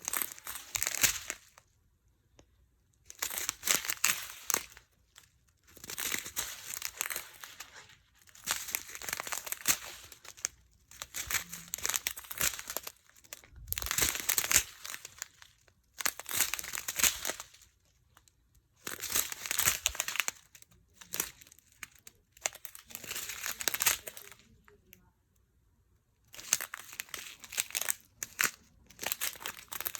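Small plastic bags of diamond-painting drills crinkling as they are handled. The sound comes in about ten separate bouts of a second or two each, with short pauses between them.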